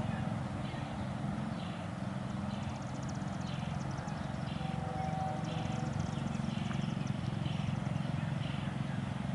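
Freight train of tank cars rolling away over jointed track, its wheels clacking about once a second over a low, steady rumble.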